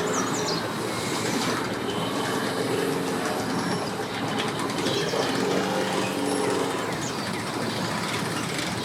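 Boat engine running as a boat is powered onto its trailer at a ramp, its pitch swelling and easing twice, over a steady rush of wind noise.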